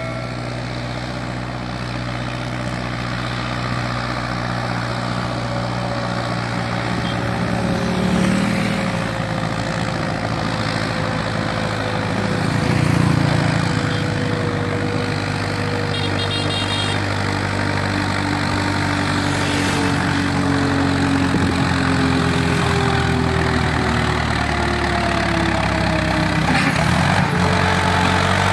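Hindustan 50 tractor's diesel engine running steadily under load as it hauls two heavily loaded sugarcane trolleys, growing louder as it approaches. Passing motorcycles briefly add to it twice, about 8 and 13 seconds in.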